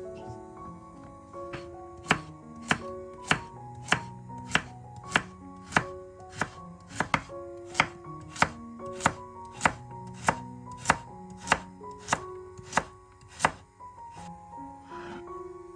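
Knife chopping on a cutting board in steady, even strokes a little under two a second, stopping near the end, with quiet background music underneath.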